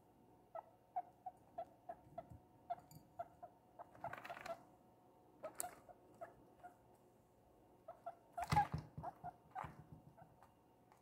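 Guinea pig giving a steady run of short, soft squeaks, a few each second. Two louder rustling bursts come about four seconds in and again about eight and a half seconds in.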